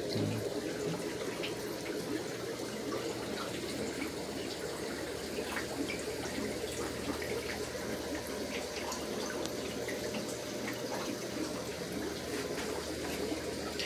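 Steady trickling and dripping of water from a rack of aquarium tanks and their filters, over a low even hum.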